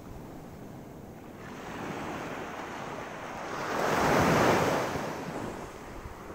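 Waves washing on a sandy beach, with wind on the microphone. The noise swells to its loudest about four seconds in, then fades.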